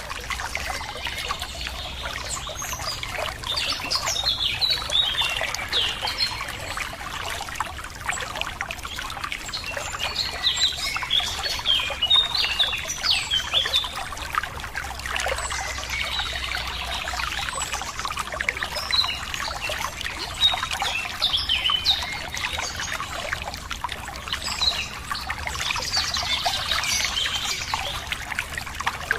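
Running water trickling steadily, with small birds chirping in short flurries over it every few seconds.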